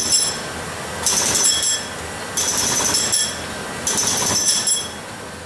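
Jackhammer on a positioning arm chipping concrete from an overhead ceiling, run in four short bursts about a second and a half apart, each with a high ringing tone. The sound fades near the end.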